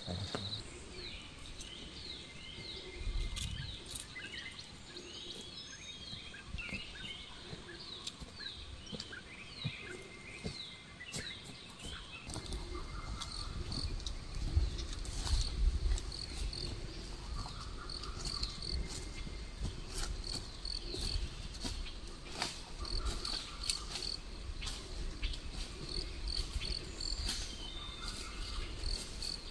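Tropical forest ambience: insects and birds calling, first a run of short falling chirps, later a quick pulsing high call, with scattered snaps and rustles and a low rumble in the second half.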